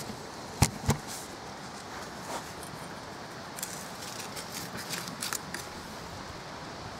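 Two sharp knocks about a second in, then scattered crackling and rustling of dry grass and weeds being pulled out of mulched soil by a gloved hand.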